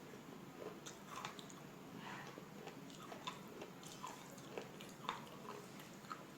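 A person biting and chewing pieces of slate, giving short, irregular crunches at about two a second.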